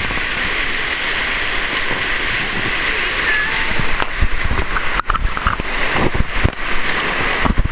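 Rushing white water of a river rapid: a steady, loud hiss. From about four seconds in, low thumps knock on the microphone.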